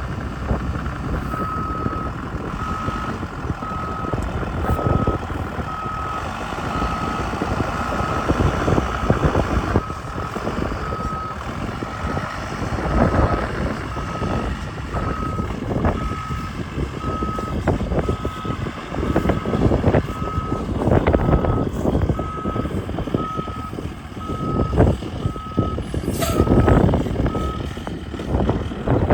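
School bus backing up: its reversing alarm gives a steady run of evenly spaced beeps over the running engine, stopping shortly before the end. A short hiss comes near the end.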